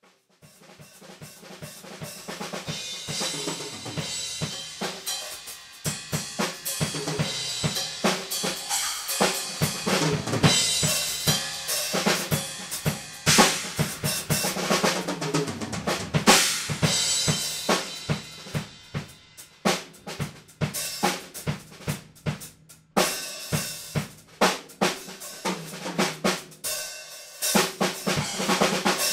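Acoustic drum kit played in a free drum improvisation: dense rolls and fills across toms, snare and bass drum with cymbal crashes. It starts quiet and builds up over the first few seconds.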